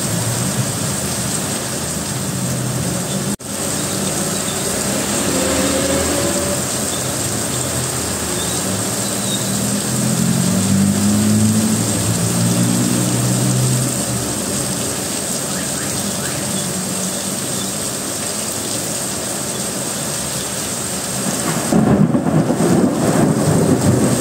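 Heavy rain pouring steadily, heard from inside a parked car, with motorbikes and cars passing through standing water on the street. Engine sound rises around the middle, and a vehicle comes close near the end, where it gets louder.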